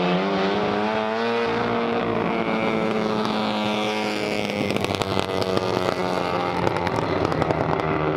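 Vintage race car engine accelerating past: the engine note climbs over the first second or so, then holds steady, with a rapid crackling from the exhaust in the second half.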